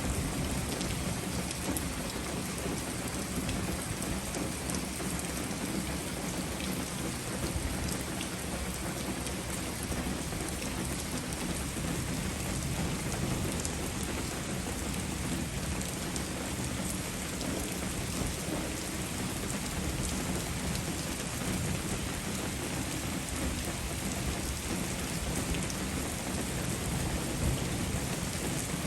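Steady heavy rain falling, a dense even hiss full of fine drop ticks, over a steady low rumble.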